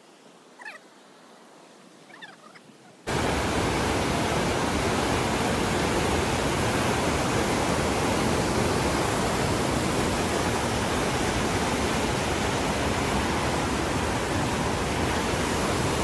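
A few faint short chirping calls, then, with an abrupt cut about three seconds in, the loud steady rush of a waterfall.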